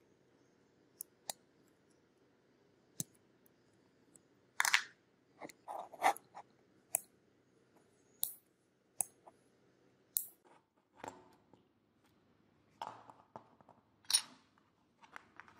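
Small steel parts of a double-barrel shotgun being handled and fitted together by hand: irregular metallic clicks, taps and short scrapes, busiest about five to seven seconds in, with a sharp clack near the end.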